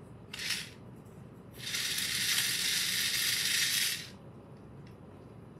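Small motor and gears of a robotic toy fish running in two bursts: a short buzz about half a second in, then a steady rattling buzz lasting about two and a half seconds. The toy seems to switch itself on when it is held upside down.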